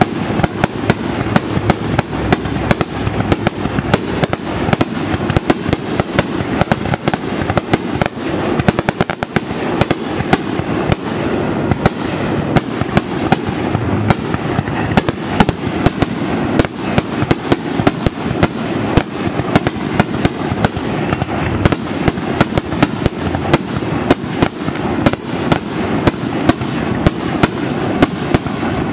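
Aerial firework shells bursting in quick succession: a near-continuous run of sharp bangs and crackles, thickest about a third of the way in.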